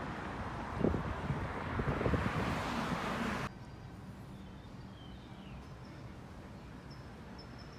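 Outdoor noise of wind and traffic with a few knocks, cutting off abruptly about three and a half seconds in to a quieter background with faint bird chirps.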